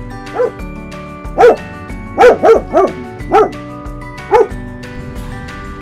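A dog barking, seven barks in an uneven run, over background music.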